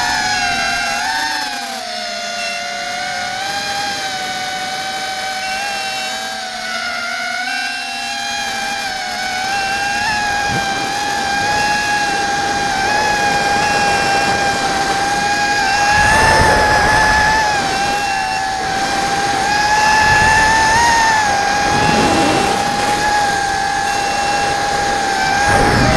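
ZMR150 mini quadcopter's brushless motors and propellers whining loudly, heard from the onboard camera. The pitch dips and wavers for the first several seconds, then holds steady, and brief rushes of air noise come now and then.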